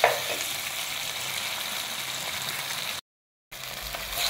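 Tomato wedges and sliced onion sizzling steadily in hot oil, with a sharp knock of the stirring spoon near the start. The sound cuts out completely for about half a second about three seconds in, then the sizzle resumes.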